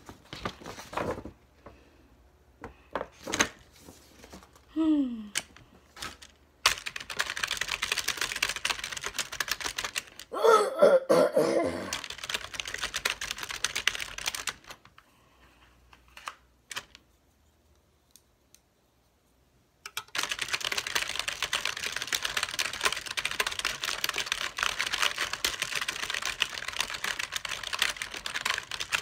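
Rapid clicking of typing on a computer keyboard, in two long stretches with a near-silent pause between them. Scattered single clicks come first, and a short vocal grunt or laugh sounds about ten seconds in.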